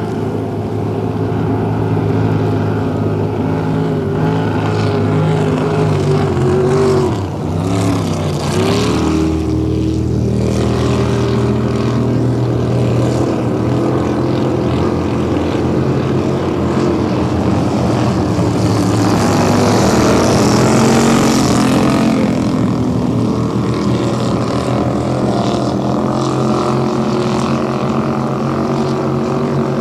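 Racing motorboat engines running hard at speed, with a brief drop and rise in engine pitch about seven to nine seconds in. A rush of hiss swells around twenty seconds in.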